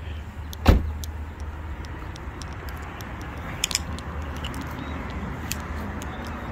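Car engine running, heard from inside the car as a steady low rumble. A single loud thump comes about a second in, and a few light clicks and rattles a little past halfway.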